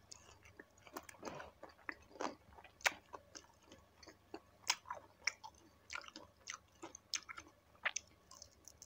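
Close-up chewing and biting of crispy deep-fried chicken feet: a run of faint, irregular crackles and mouth clicks.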